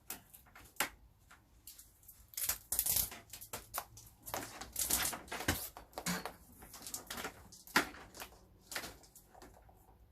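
Irregular clicking, crackling and rustling of cable and tools being handled, with short sharp clicks scattered among softer rustles.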